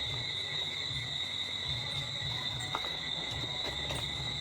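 Steady chorus of crickets: a continuous high-pitched trill with a weaker lower band, over faint low rumbling and a few light clicks.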